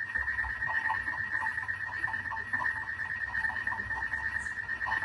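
Background chorus of calling frogs and insects: a steady high trill, with shorter pulsed calls repeating irregularly beneath it.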